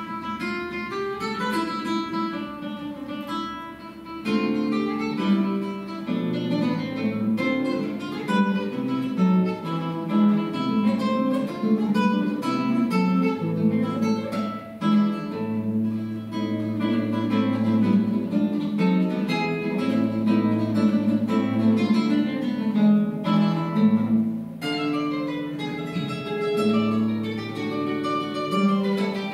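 Solo classical guitar playing a fast run of plucked notes and chords. It starts abruptly at the beginning.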